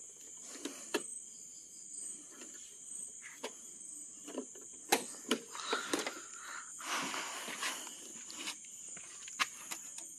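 Scattered light clicks and knocks, with a short rustle about seven seconds in: handling noises around a scooter's rear fuel-filler flap. Under them runs a steady high chirring of crickets.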